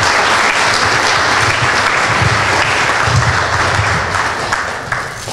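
Audience applauding: many people clapping steadily, dying down near the end.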